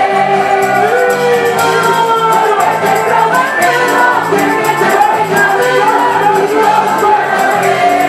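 Live worship music: a large church choir singing a Spanish-language song with band accompaniment, drums and cymbals keeping a steady beat under a repeating bass line.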